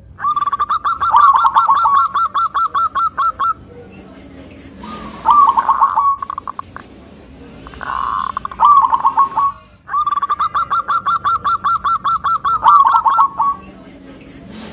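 Zebra dove (perkutut) singing: two long runs of rapid, evenly repeated coos, each about three and a half seconds, one at the start and one about ten seconds in, with shorter cooing phrases between them.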